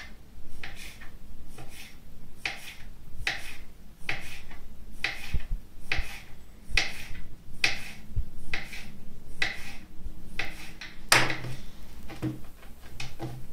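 Kitchen knife chopping through a rolled-up sheet of thin egg-noodle dough and tapping the table beneath, in a steady series of cuts about one a second. A single louder knock comes near the end.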